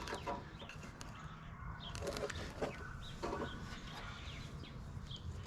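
Chickens clucking faintly a few times, short calls about two seconds in and again a second or so later.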